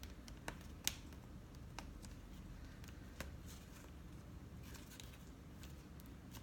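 Faint clicks and light rustling of cardstock being handled as glued paper tabs are pressed down by hand, over a low steady room hum.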